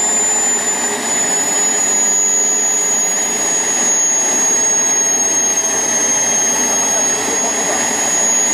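Small gas turbine in a model GT3 turbine locomotive running: a loud, steady rushing noise with a high whine on top that wavers slightly in pitch.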